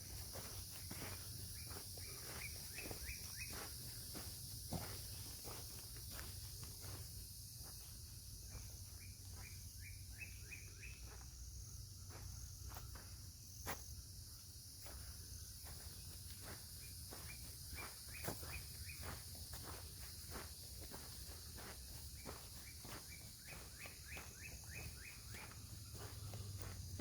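Footsteps of a hiker walking on a woodland dirt trail. A bird repeats a quick run of five or six short notes about four times, over a steady insect drone.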